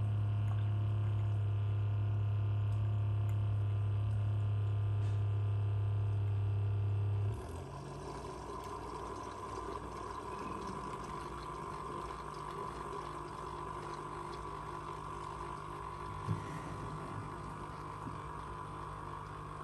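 Background music made of sustained tones: a loud steady low drone that drops out about seven seconds in, leaving quieter held tones.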